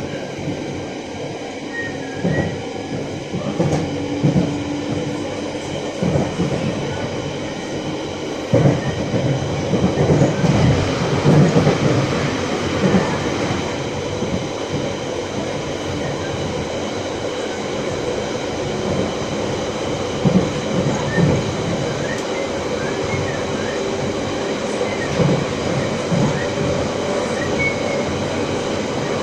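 London Underground Central Line train, 1992 Stock, running between stations, heard from inside the carriage: a continuous rumble and rail clatter with steady whining tones on top, growing louder for a few seconds about nine seconds in.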